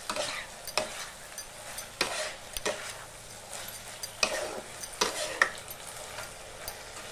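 Metal spatula stirring and tossing sauce-coated paneer and vegetables in a non-stick kadai: irregular scrapes with several sharp knocks of the spatula against the pan, over a soft sizzle of the sauce on low flame.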